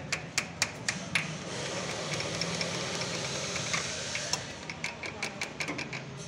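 Sharp metal taps of a small hand tool working a new oil seal into the steering box housing around the steering shaft of a TAFE 1035 tractor; the seal had been leaking. Several quick taps come in the first second and a half, a steady hiss follows, and another run of taps comes near the end.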